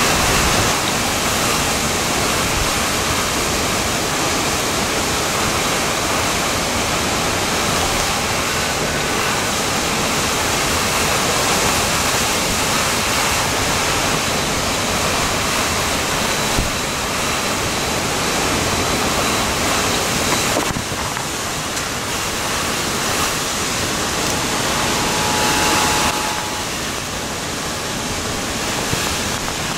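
Steady, loud rush of tornado-driven wind and heavy rain during an EF-1 tornado, easing slightly about two-thirds of the way through.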